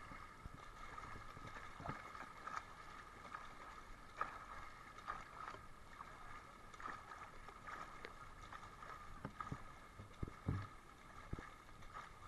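Faint, irregular splashes and water slaps from a swimmer's front-crawl arm strokes and kicks in a pool, over a steady background tone.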